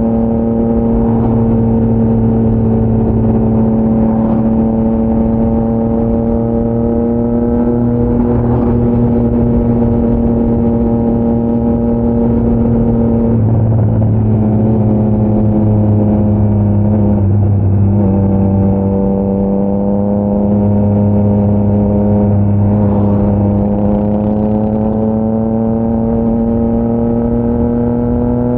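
Triumph Trident 660's inline three-cylinder engine through a GPR full-system aftermarket exhaust, cruising at steady revs. The note shifts and wavers briefly about halfway through, then climbs slowly near the end as the bike speeds up.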